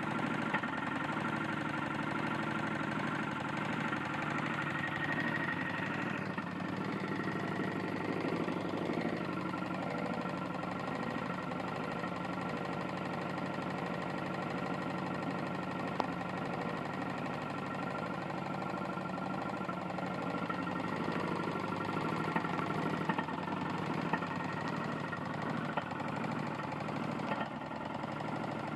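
Tecumseh lawn mower engine running steadily with a rapid knock, the sign of a badly worn connecting rod.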